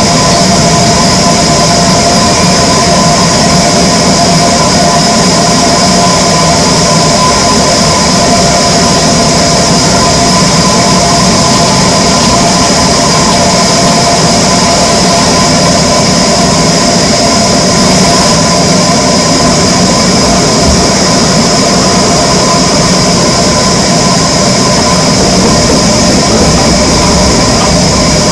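Wood-cutting power saw running steadily: a loud, unbroken machine drone with a steady high whine.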